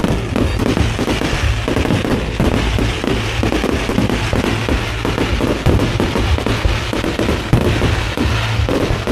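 Fireworks bursting and crackling in a rapid, dense barrage, with music playing underneath.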